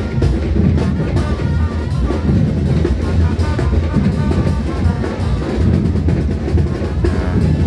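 Drum-heavy live parade music at a steady loud level, with bass drum and snare hits keeping the beat.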